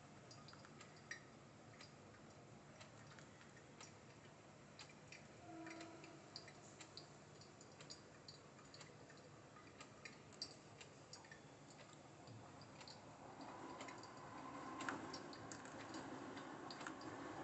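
Near silence with faint, irregular ticks and drips as a thin stream of hot water from a gooseneck kettle is poured onto coffee grounds in a Kalita Wave pour-over dripper; the quiet hiss of the pour grows louder over the last few seconds.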